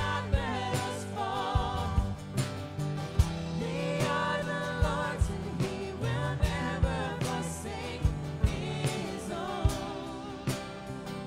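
Live worship band: several voices singing a sustained melody over acoustic guitar, electric bass and a drum kit, with regular drum hits.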